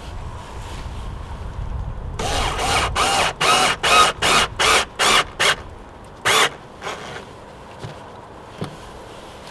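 Cordless drill-driver pulsed on the trigger in a quick run of short bursts, about three a second for some three seconds, each whirring up and falling back in pitch. One more burst follows about a second later.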